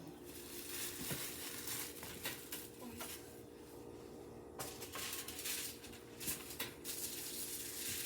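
Light, scattered clinks and knocks of kitchen utensils and a baking sheet being handled, over a low steady hum.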